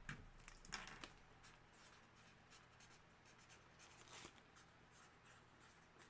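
Near silence with faint handling sounds: light scratching or rubbing and a few soft taps, about a second in and again a little past four seconds.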